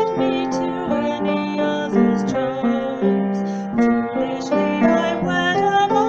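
Keyboard music playing a melody over held chords.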